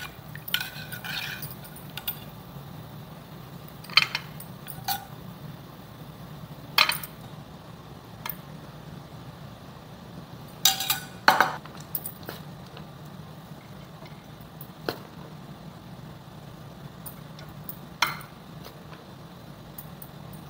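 Scattered metal clinks of a serving spoon against steel pans and a plate as food is dished out, a few seconds apart, over a steady low hum.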